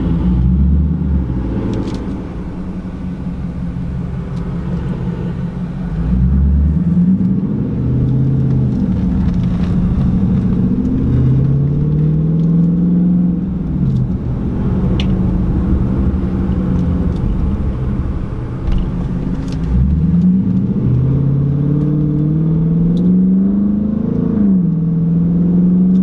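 Dodge Charger's Hemi V8 pulling through the gears while driving, its engine note rising and falling several times, louder from about six seconds in.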